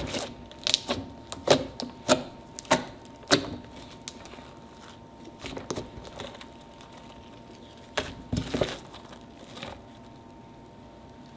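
Glittery clear-glue slime being kneaded and pressed by hand: sharp clicking pops from the slime, about seven in the first few seconds at roughly half-second spacing, then a few weaker ones and a second cluster later on.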